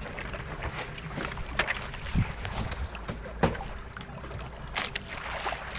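Steady wind and water noise on a small boat, broken by a few separate knocks and clicks.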